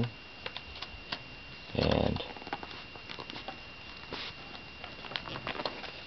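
Scattered faint clicks and taps of a laptop RAM module being handled and fitted into its memory slot, over a steady high-pitched tone.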